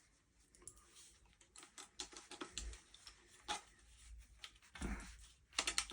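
Faint, scattered clicks and small knocks from a Panser EGX 500 bullpup 12 gauge shotgun being handled, its magazine and controls worked by hand, with a few louder knocks near the end.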